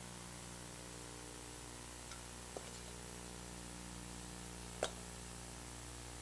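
Slotted metal spoon clicking against a stainless steel bowl and plate as fried potatoes are spooned out: two faint clicks and one sharper click just under five seconds in, over a steady background hum.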